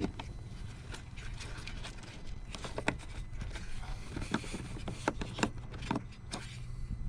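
Scattered light clicks and taps of a plastic parking sensor and bumper parts being handled, over a steady low hum.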